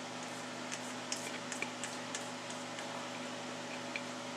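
Steady electrical hum of a kitchen appliance, with a scatter of faint light clicks in the first half and one more near the end.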